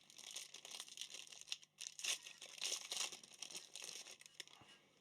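Foil trading-card pack wrapper crinkling and tearing as it is opened by hand, in irregular bursts that die away near the end.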